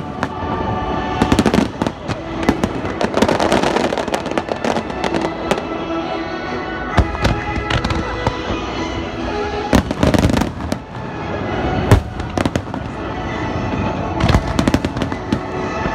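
Fireworks display: shells launching and bursting in quick succession, a dense run of sharp bangs and crackles, with a loud bang about twelve seconds in. Music plays along underneath.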